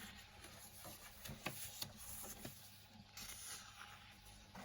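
Pages of a small paperback colouring book being turned and handled: soft paper rustling and a few light taps, with a longer rustle about three seconds in. Under it runs the faint steady hum of a turtle tank's pump.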